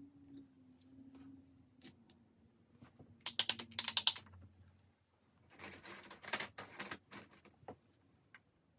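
Two bursts of rapid clicking and rattling, typical of objects being handled, about three and six seconds in, with a few scattered single clicks and a faint low hum underneath.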